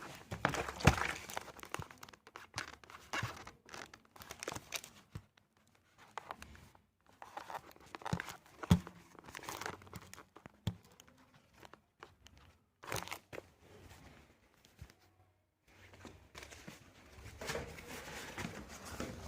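Packing materials being handled: irregular crinkling, rustling and tearing, with sharp knocks now and then, as a heater is wrapped for shipping.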